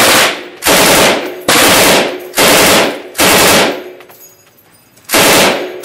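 An M249 SAW belt-fed 5.56 mm light machine gun firing controlled short bursts of about 4 to 5 rounds each, indoors. There are six bursts, each about half a second long and spaced just under a second apart, with a longer pause before the last. Each burst rings on in the range's echo.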